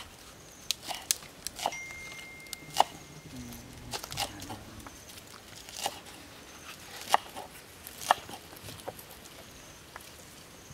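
Cleaver chopping spring onions on a round wooden chopping board: irregular sharp knocks of the blade on the wood, about one or two a second, the loudest about three seconds in and again around seven and eight seconds in.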